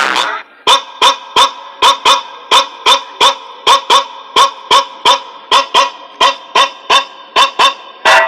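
A short, honk-like tone repeated evenly, about three times a second, as a break in the music played loud through a car sound system.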